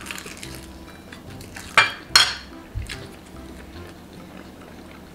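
A fork clinking against dishes twice, sharply and about half a second apart, with a brief ring after each.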